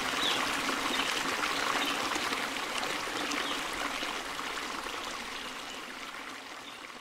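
Steady rushing, stream-like water noise, fading out gradually over the last few seconds.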